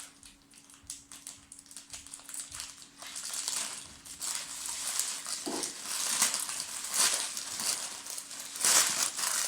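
Plastic bags of robot-kit parts crinkling and rustling as they are handled. Quiet at first, it gets louder from about three seconds in.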